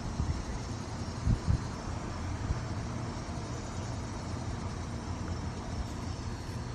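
Steady low outdoor background noise, with two brief low thumps about a second and a half in.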